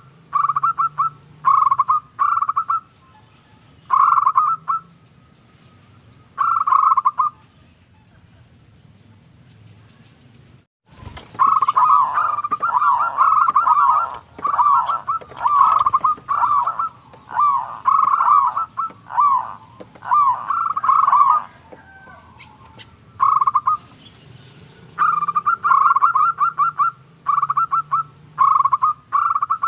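Zebra dove (perkutut) singing: repeated phrases of quick, trilled cooing notes. After a pause of a few seconds in the middle, it sings a long, unbroken run of phrases before returning to shorter bursts.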